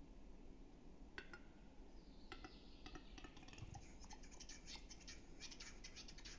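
Male western capercaillie's display song, faint: a few spaced clicks from about a second in that speed up into a dense run of scraping clicks over a hiss, which stops just at the end.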